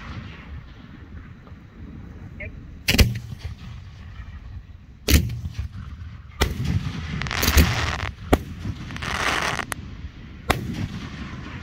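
Aerial firework shells going off: about six sharp, loud booms at irregular intervals, with a noisy rush between some of them in the second half.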